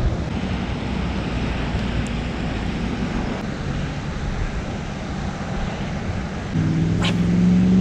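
Wind buffeting the microphone over a low outdoor rumble. Near the end a steady low drone with several tones comes in and grows louder, with a single sharp click just after it starts.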